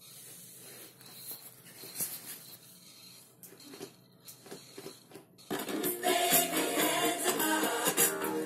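Vega-323 stereo radiogram playing a vinyl record: a few faint clicks from the spinning disc, then about five and a half seconds in, music with singing starts from the record through the radiogram's speaker.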